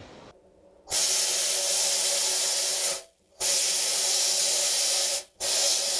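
A tape measure's nylon-coated blade being abraded in a durability test: a steady, harsh hiss that stops abruptly for a moment twice, about three seconds in and near the end.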